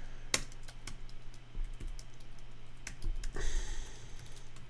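Typing on a computer keyboard: irregular key clicks and taps as a line of code is entered.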